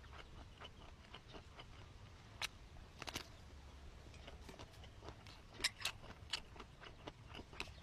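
Faint chewing and mouth smacks of someone eating, with a few sharper clicks scattered through.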